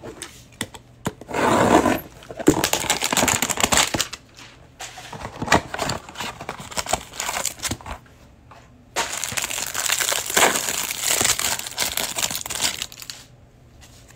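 Trading-card hanger box packaging being opened: cardboard and plastic wrap torn and crinkled in several bursts of rustling. The bursts are loudest from about one to four seconds in and again from about nine to thirteen seconds.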